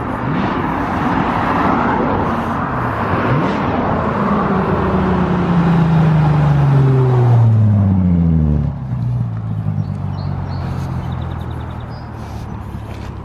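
A car's engine and exhaust growing louder and passing close, its note falling in pitch, loudest about seven seconds in and dropping off sharply near nine seconds, then running on more quietly.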